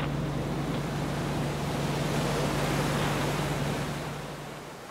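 Steady rush of wind and sea water over a steady low hum, swelling about three seconds in and fading near the end.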